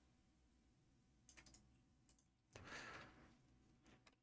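Near silence with a few faint, scattered clicks from a computer keyboard and mouse, and a short soft run of taps a little before three seconds in.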